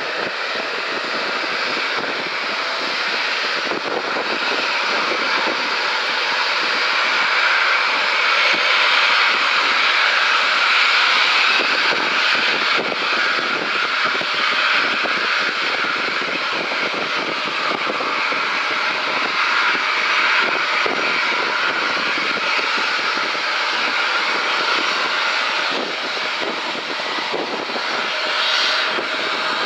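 Boeing 787-8 Dreamliner's twin turbofan engines at takeoff thrust during the takeoff roll, a loud, steady jet rush heard from behind the aircraft as it accelerates away down the runway. It grows louder over the first several seconds, then holds.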